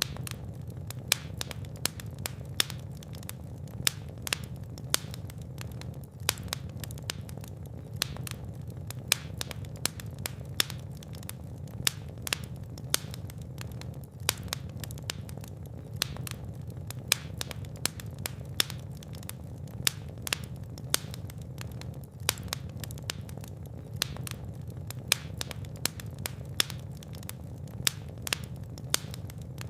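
Fire in a fireplace crackling, with frequent sharp irregular pops over a steady low rush of flame.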